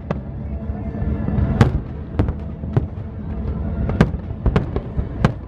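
Aerial fireworks shells bursting in a series of about eight sharp bangs at uneven intervals, over music playing underneath.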